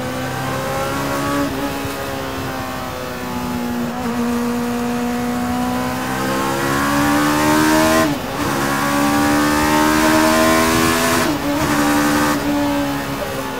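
Kawasaki Ninja motorcycle engine in a mid-engine Rover Mini pulling under acceleration, its pitch climbing steadily. Twice in the second half the note drops briefly and climbs again, quick upshifts.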